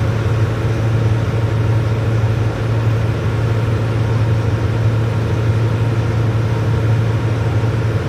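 An engine running steadily with a low, even hum that does not change.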